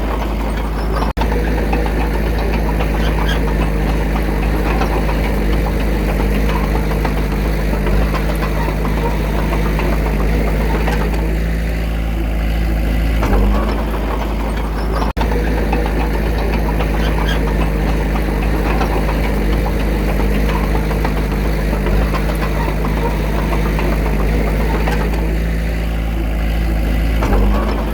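Komatsu D21A bulldozer's diesel engine running steadily, with a strong low hum and a pattern that repeats about every 14 seconds.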